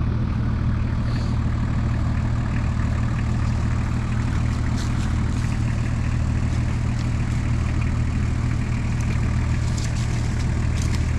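A 4WD's diesel engine idling steadily at a constant, unchanging speed, with no revving.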